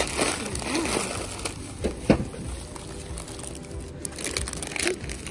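Thin plastic bag rustling and candy wrappers crinkling as hands dig through a bagful of wrapped sweets, in irregular scrunches with a sharper crackle about two seconds in.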